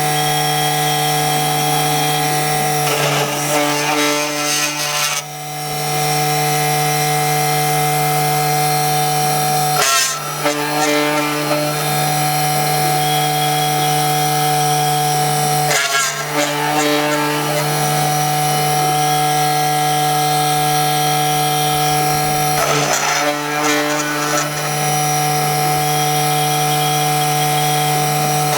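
CNC milling machine running, its spindle giving a steady pitched whine as the cutter mills a 3 mm aluminium part. About every six to seven seconds there is a short, harsher, noisier stretch of cutting.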